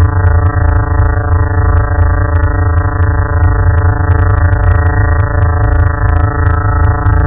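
Emergency alert alarm tone: a loud, steady electronic drone of many stacked tones over a heavy low rumble, holding unchanged.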